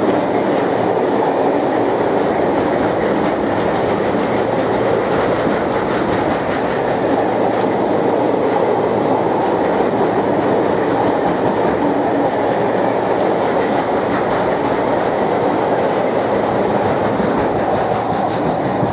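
Freight train of covered car-carrier wagons rolling past, a steady loud rumble of steel wheels on the rails with faint regular wheel clicks.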